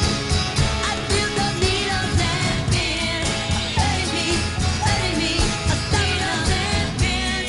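A 1960s pop record playing: a band with a steady beat and singing.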